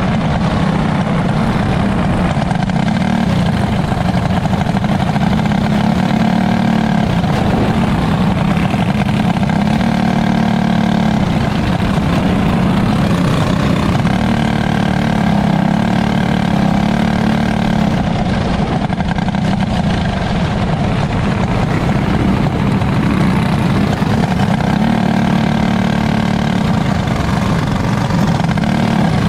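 A cage kart's small engine running steadily at low speed, heard from on board, its pitch wavering slightly without any hard revving.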